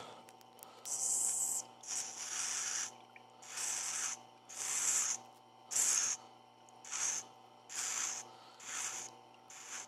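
Steel extruder drive-gear shaft pressed against the turning stone of a wet sharpening grinder in about nine short grinding passes, a hissing scrape roughly once a second over the machine's steady motor hum, chamfering the edge around the shaft.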